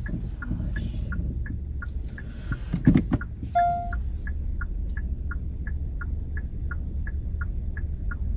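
Car indicator ticking steadily, about three ticks a second, over the low rumble of the car moving slowly. A thump comes about three seconds in, followed by a short single electronic beep.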